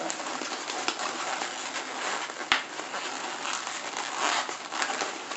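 Latex twisting balloons rubbing and rustling against each other and the hands as they are twisted, with a sharp click about halfway through and a louder rub at the very end.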